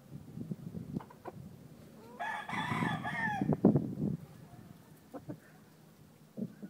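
A gamefowl rooster crows once, about two seconds in, for just over a second. A sharp knock follows just after the crow and is the loudest sound, among scattered low scuffs and thumps.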